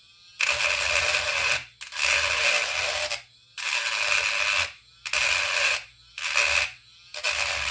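Rhythmic scraping strokes of a hand tool on thin aluminum, about one stroke a second with short pauses between, taking off a bit of aluminum flashing that sticks out and blocks a cover screw.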